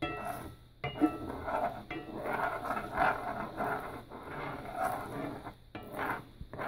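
A spatula scraping and stirring scrambled eggs across the bottom of a modern Lodge cast iron skillet, in a run of uneven strokes.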